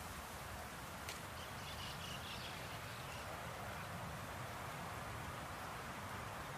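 A faint, short, broken call of a Schlegel's green tree frog about a second and a half in, over a steady hiss of outdoor background noise. A single click comes just before the call.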